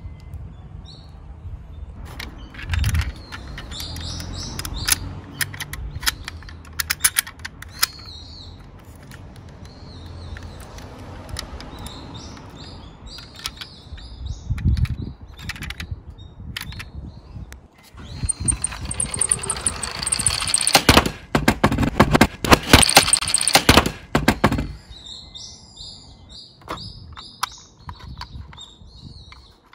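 Tomica die-cast toy minicars rolling down a slope: a low rolling rumble with many clicks and knocks, densest and loudest about two-thirds of the way through. Short high chirping notes come and go.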